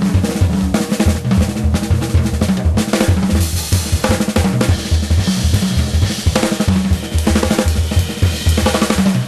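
Background music with a steady drum-kit beat and bass line.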